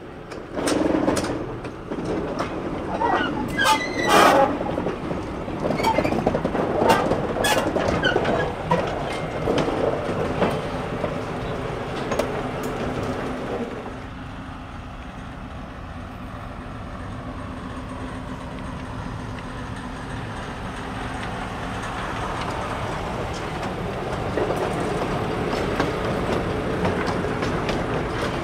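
Small diesel shunting locomotive and its wagons moving slowly through a rail yard. In the first half there are irregular clanks and knocks from wheels, couplings and rail joints; after that comes a steadier rumble that slowly grows louder.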